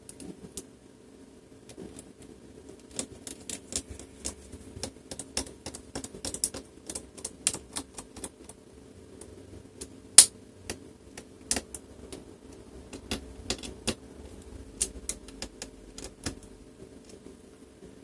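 Irregular small clicks and taps of hands handling the plastic and metal parts of an opened laptop and the tools beside it, with one sharper click about ten seconds in.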